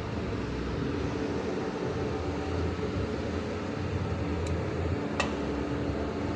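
Large metal lathe running steadily, an even mechanical hum with several steady low tones, with a sharp click about five seconds in.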